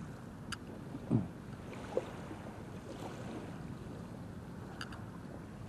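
Gentle lapping of shallow water at the shoreline, an even wash of noise. A soft low thump about a second in, and a couple of faint sharp clicks.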